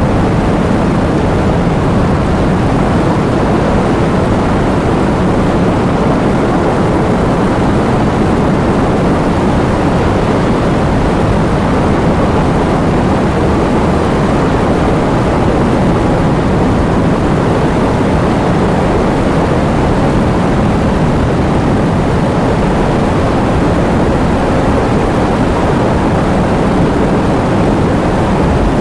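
Heavy rain driven by wind: a steady, dense rushing noise, deepest in the low range, that does not let up.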